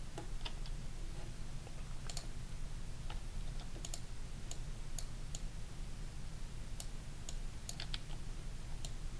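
Computer mouse and keyboard clicks, about a dozen, sharp and irregularly spaced, over a steady low hum.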